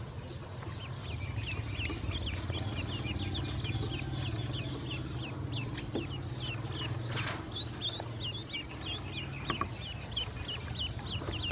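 Ducklings peeping: many short, high, falling peeps, several a second, overlapping from more than one bird.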